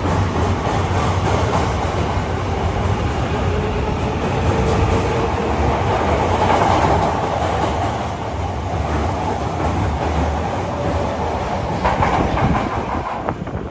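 Osaka Metro 9000-series subway train pulling out and picking up speed past the platform, its wheels and motors running steadily. The sound drops away near the end as the last car enters the tunnel.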